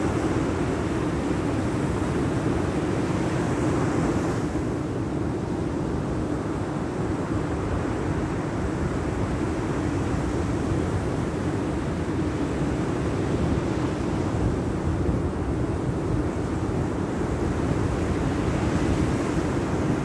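Sea surf breaking and washing up a sandy beach, with wind on the microphone: a steady rush that swells briefly about four seconds in and again near the end.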